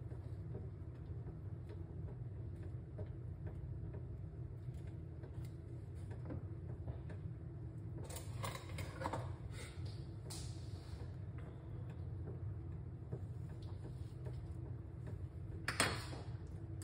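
Steady low kitchen hum, with a few faint clicks and scrapes about halfway through and one sharper click near the end.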